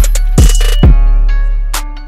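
Music with a deep sustained bass and drum-machine hits, the bass sweeping down in pitch twice in quick succession about half a second in. A sharp hit comes near the end as the track fades.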